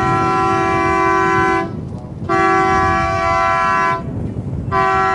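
Race committee's starting horn sounding long, steady blasts of one pitch, signalling a general recall of the start. One blast ends about a second and a half in, a second runs from about two to four seconds, and a third starts near the end.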